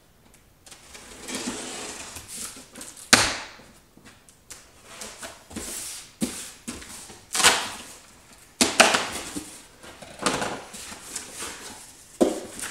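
A knife slitting the packing tape on a cardboard shipping box and the cardboard flaps being pulled open: a run of scraping and ripping noises with several sharp cracks.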